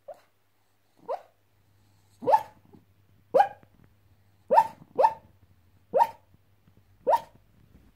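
Small dog barking in its sleep while dreaming: eight short yips about a second apart, the first two fainter.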